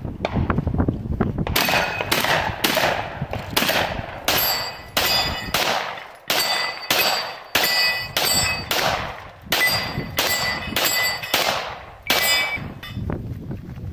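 Rapid string of about twenty pistol shots, roughly two a second, starting about a second and a half in, with steel targets ringing out as they are hit.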